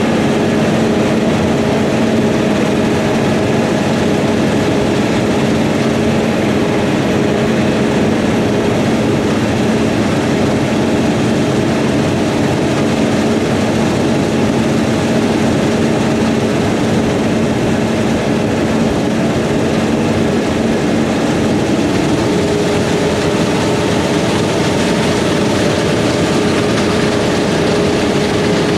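Heavy diesel harvest machinery running steadily under load, a dense mechanical noise with a constant hum whose pitch shifts upward about three-quarters of the way through.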